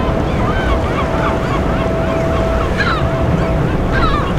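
Birds calling again and again in short calls that bend up and down in pitch, over a steady low rumble and a faint steady hum that comes and goes.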